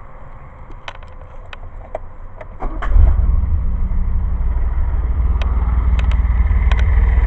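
A few sharp clicks, then about three seconds in the carbureted DeLorean PRV V6 engine starts and settles into a steady idle of about 700 RPM, evenly running on a good idle-circuit tune.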